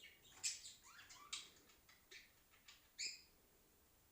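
Faint bird chirps, about half a dozen short high calls spread across the few seconds, one of them a quick rising note.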